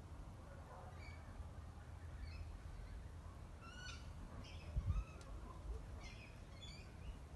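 Small birds calling in short, scattered chirps and rising notes, over a low outdoor rumble that swells briefly about five seconds in.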